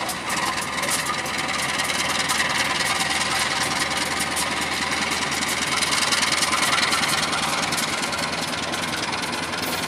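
KAI CC201 diesel-electric locomotive's engine running steadily as it hauls passenger coaches past, with a fine rapid clatter over the top.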